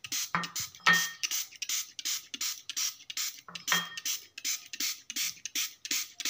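Small hand-pumped spray bottle spraying rose water into a bowl: quick repeated hissing sprays, about four a second, with a couple of louder knocks.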